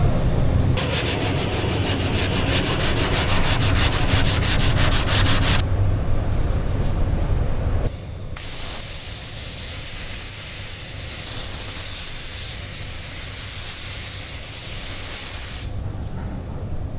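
An air spray gun hissing steadily for about seven seconds as paint is sprayed onto a repaired tailgate. Before it, a few seconds of rapid, even rasping.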